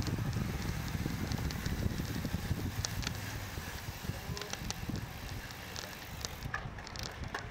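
Wind rushing over the microphone of a bicycle being ridden along the road, with scattered light ticks and clicks from the bike.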